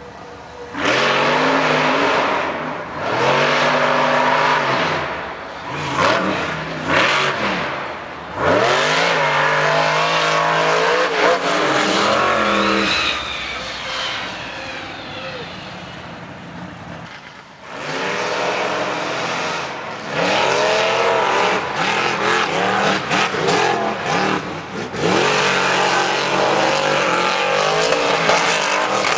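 Monster truck engines revving hard and dropping back again and again as the trucks power across a dirt track. There are loud bursts of acceleration, with a quieter stretch about midway.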